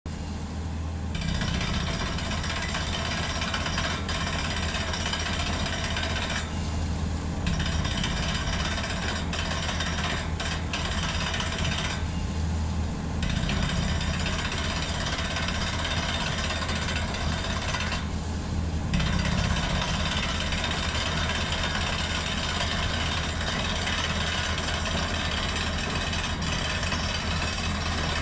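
Powered digging machinery at work on a well: a steady engine drone under a continuous jackhammer-like rattle. The rattle stops for about a second three times while the drone carries on.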